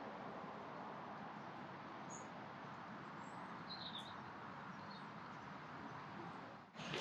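Steady, faint outdoor background hiss, with a few brief, faint high bird chirps around the middle.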